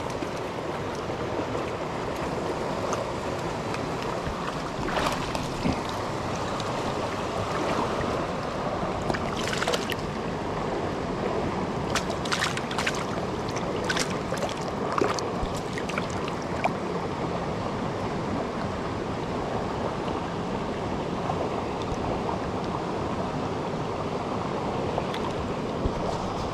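Steady rushing of a fast-flowing river, with a scattering of short clicks and knocks in the middle stretch.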